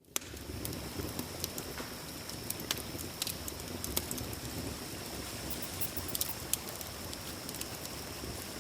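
Campfire crackling, with sharp irregular pops over a low rumble, against a steady high-pitched drone of night insects.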